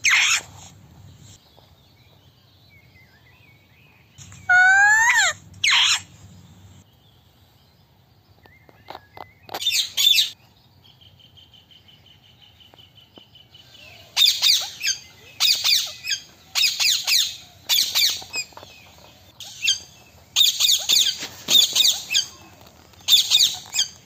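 Rose-ringed (Indian ringneck) parakeets calling. There are a few separate calls in the first ten seconds, then a run of loud, harsh screeches about once a second through the last ten seconds.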